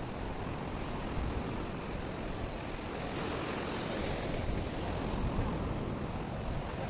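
Steady rush of wind on the microphone and sea surf, with a hiss that swells and fades around the middle.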